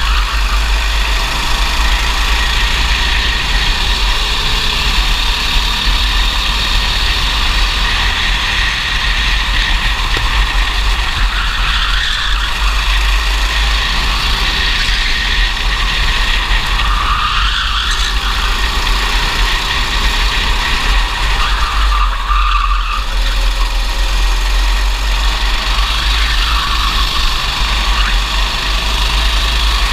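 Racing kart engine running hard, heard from the kart itself, its pitch dipping and climbing again a few times as the kart works through corners, over a steady low rumble.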